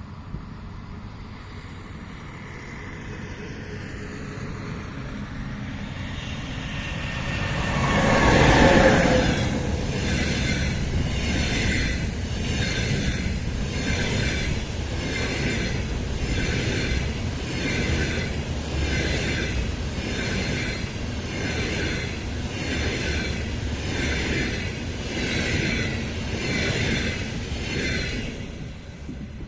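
EP20 electric locomotive and double-decker passenger coaches passing at speed. The sound swells as the train approaches and is loudest as the locomotive goes by about eight seconds in. Then comes a steady rhythmic clatter, about once a second, as the coaches pass, dropping away near the end.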